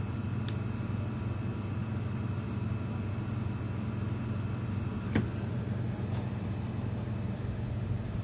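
Steady low machine hum, like a fan or air conditioner running, broken by three short clicks, the loudest about five seconds in.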